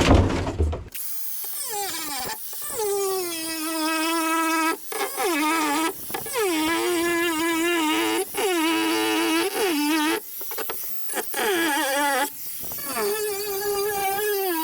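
An angle grinder cutting into a freezer's sheet-metal cabinet: a steady high motor whine that drops in pitch each time the disc bites and climbs briefly when eased off, in runs of a second or two with short stops. A loud, low, noisy knock in the first second.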